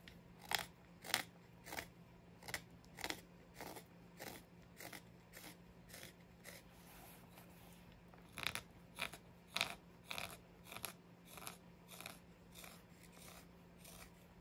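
Mora 106 carving knife taking short slicing cuts through oak while roughing out a spoon, about two cuts a second, with a brief pause about seven seconds in before the cutting picks up again.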